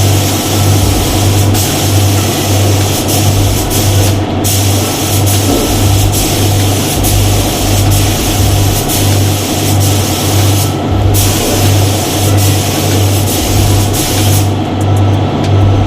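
Compressed-air spray gun hissing steadily as paint is sprayed. The spray breaks off briefly twice, and a low, regular throb runs underneath.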